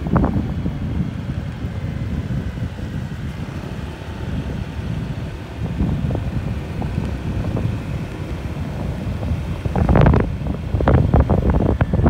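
Wind buffeting the microphone of a moving vehicle over a low rumble of the ride, stronger and gustier from about ten seconds in.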